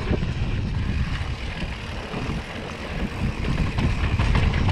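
Mountain bike riding down a dirt trail, heard from a camera on the bike: a steady rough rumble of wind on the microphone and tyres on dirt, with short rattles of the bike over bumps.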